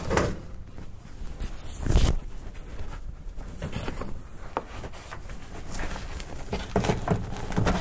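Rustling and light knocking as an old cloth headliner on bow rods is worked up into a car's roof, with one louder thump about two seconds in.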